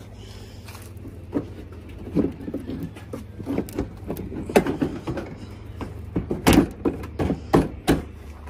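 Plastic knocks and clacks of a car headlight assembly being pushed and worked into its mounting against the front-end body panels, a series of sharp irregular hits with the loudest about six and a half seconds in. A steady low hum runs underneath.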